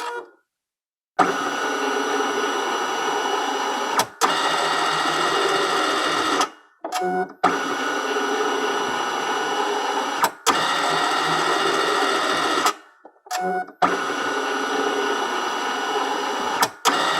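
Document scanner running: after about a second of silence its motor starts and whirs steadily with a whine. The whirring is broken by a click about every three seconds and by two brief stops.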